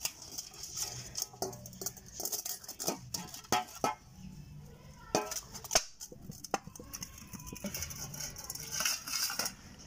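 Fingers rubbing oil around the inside of a stainless steel bowl, with scattered light clicks and knocks of hands against the metal and one sharper knock about six seconds in.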